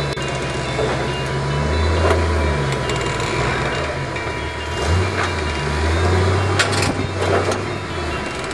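A rock crawler's engine revving in repeated bursts as the buggy climbs over boulders. A few sharp cracks of tires and chassis against rock come about two thirds of the way in.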